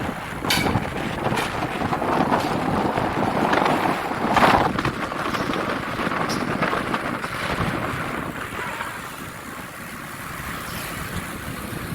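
Outdoor rumbling noise with wind buffeting the microphone, broken by a few sharp knocks.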